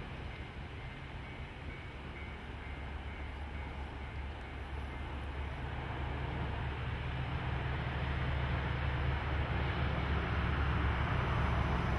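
DF200 diesel-electric locomotive hauling a freight train, its diesel engine drone and the train's rumble growing steadily louder as it approaches.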